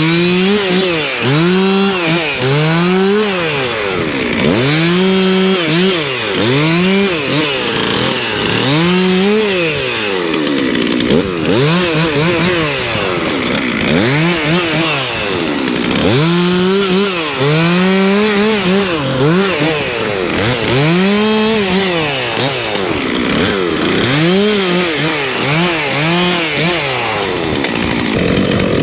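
Chainsaw running throughout, its engine revving up and dropping back again and again, about once every one to two seconds, as it cuts wood.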